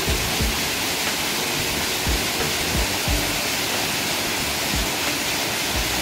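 A 28 m waterfall rushing steadily down a rock face: a constant, dense hiss of falling water, with occasional low thumps.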